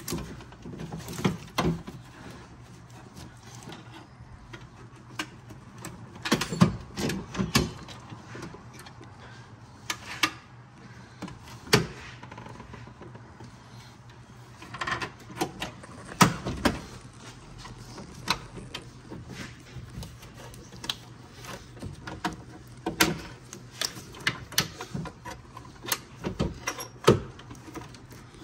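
Irregular clicks, knocks and rattles of hands working parts into place inside a car door: the new window regulator assembly, plastic clips and wiring harness being positioned.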